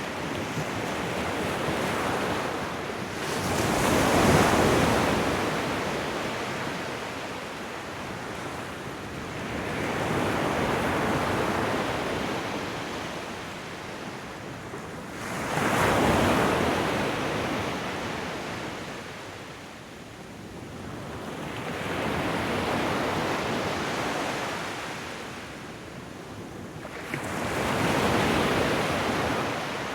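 Ocean waves washing onto the shore, the surf swelling and ebbing about five times, each surge building and fading over a few seconds, a couple of them rushing in suddenly.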